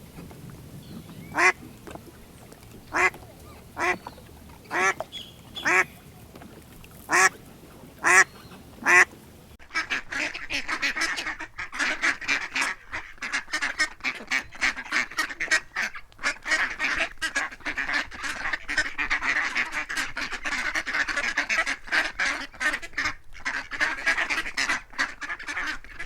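Ducks quacking: about ten separate, loud quacks in the first nine seconds, then a sudden change to a dense, continuous chatter of many rapid overlapping calls.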